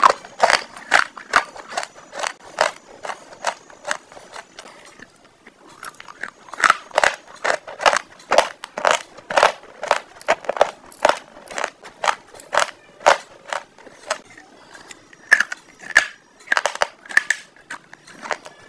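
Close-miked ASMR eating mouth sounds: a fast run of crisp crunching and wet smacking clicks, two to three a second, with a short lull about five seconds in.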